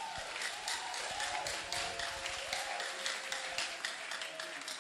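Scattered clapping from a congregation, many irregular claps, with faint voices underneath.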